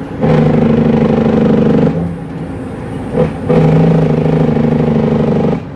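Cummins N14 diesel engine of an International truck, heard from inside the cab, running loud at a steady pitch in two spells. The first lasts about a second and a half. After a lull of about a second and a half, the second lasts about two seconds and cuts off sharply near the end.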